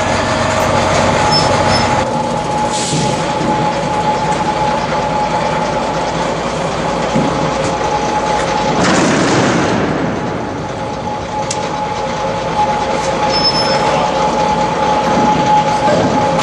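Heavy machinery running steadily: a loud mechanical din with a steady high whine, swelling into a louder burst of noise about nine seconds in.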